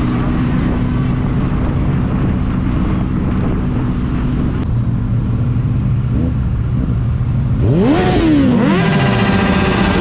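Motorcycle engine idling steadily, then revved up and down several times in quick throttle blips near the end.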